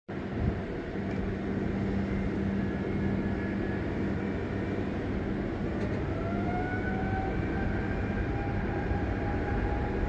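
Airbus A330-941's Rolls-Royce Trent 7000 turbofan engines running over a steady rumble and low hum. About six seconds in, a rising whine begins as the engines spool up for the takeoff roll.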